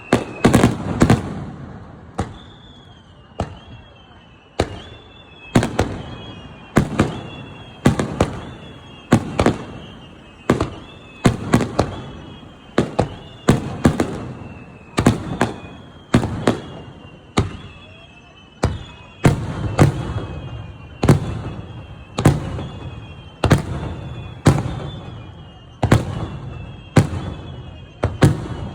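Fireworks display: aerial shells bursting in a steady run of sharp bangs about one a second, each trailing off in an echo. A faint high tone sliding down in pitch recurs between the bangs.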